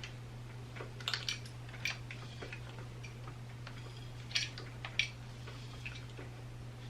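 A few light clicks and taps from a curling iron being handled while hair is curled, in two small clusters about a second in and between four and five seconds, over a steady low hum.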